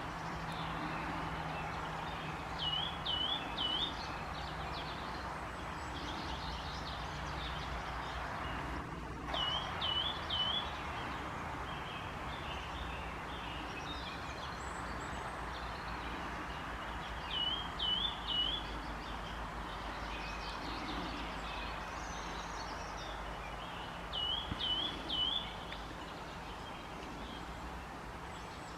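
Eurasian nuthatch singing: four short phrases of three quick, clear whistled notes, spaced roughly seven seconds apart, over a steady background rush.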